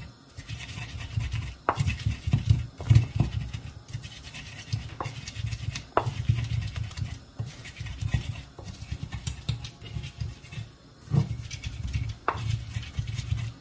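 Wooden pestle crushing and grinding chopped onions against the ridged inside of an earthenware apotoyiwa bowl. It rubs and scrapes in uneven strokes, with a few sharp knocks of wood on clay.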